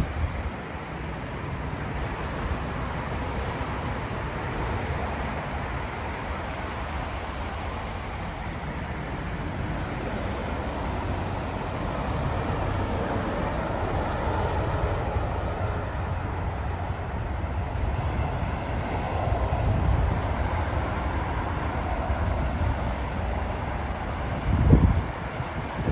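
Strong wind buffeting the microphone over a steady low rumble, with one loud thump near the end.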